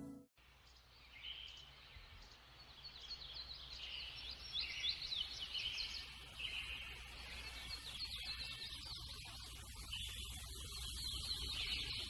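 A chorus of many small songbirds chirping and singing at once: dense, overlapping short high calls and quick trills that fade in about a second in, over a faint steady low hum.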